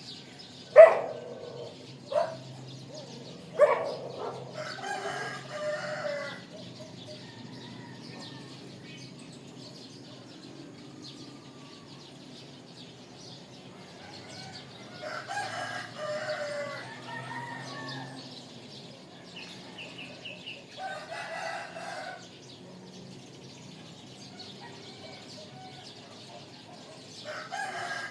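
Roosters crowing several times, with chickens clucking. Three short, sharp, loud calls come in the first few seconds, the loudest about a second in.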